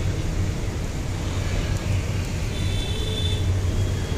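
Steady low rumble of outdoor street background noise, with a brief faint high tone about three seconds in.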